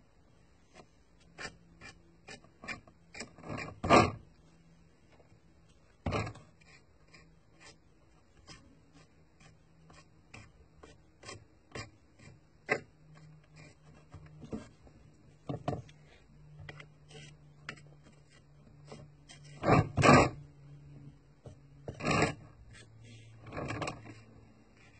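Paintbrush scrubbing and dabbing oil wash over a plastic model tank: a long run of short scratchy strokes and taps, with a few louder knocks, the loudest about four seconds in and around twenty seconds in.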